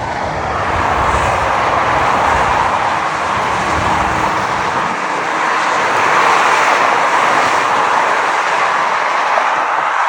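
Steady rushing noise while riding a road bike beside a freeway: wind on the microphone mixed with the hiss of freeway traffic. A low, uneven rumble under it drops away about halfway through.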